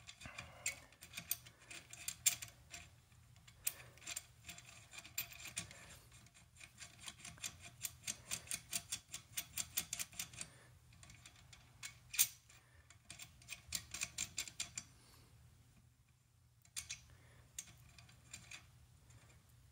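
Faint metallic clicking and ticking as a rifle muzzle brake and its threaded nut are turned by hand on the barrel's muzzle threads. The clicks come in quick runs of about six a second, with pauses between.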